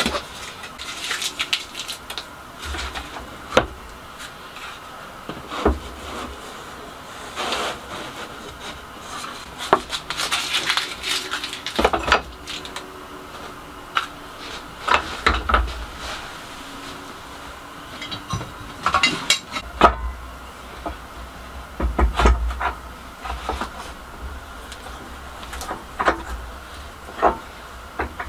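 Irregular knocks, clicks and clatter of plywood pieces and quick-release bar clamps being picked up, set down and tightened on a wooden workbench during a glue-up, with a few dull thuds.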